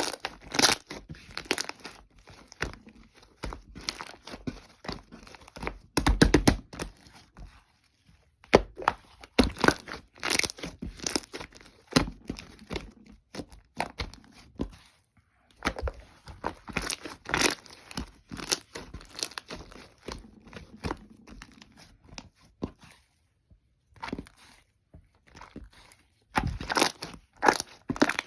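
Clear slime full of air bubbles being worked by hand, giving a stream of irregular crackling pops and clicks with brief pauses.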